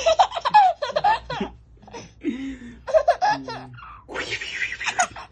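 A small girl laughing and making funny, playful voice sounds in short high-pitched bursts, with a lower voice laughing briefly in between, about two and three seconds in.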